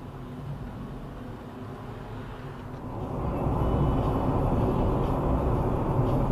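Car driving, heard from inside the cabin: steady low engine hum and tyre and road rumble, which become much louder about three seconds in.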